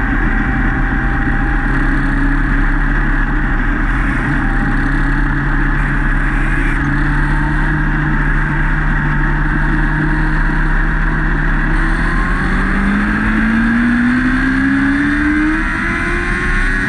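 Lightning Sprint race car's engine running hard at racing speed, heard onboard over heavy wind rush. Its pitch holds fairly steady, then climbs steadily over the last few seconds as the car accelerates.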